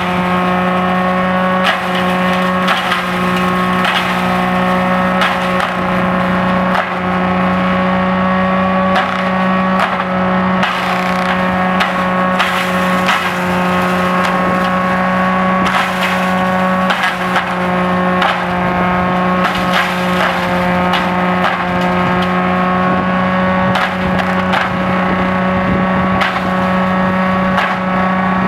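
Tractor-driven farm waste pulverizer running at a steady speed, with a constant hum and whine from its rotor and the tractor's diesel engine. Irregular sharp cracks and snaps come through as coconut palm fronds are chopped and the shredded fibre is blown out.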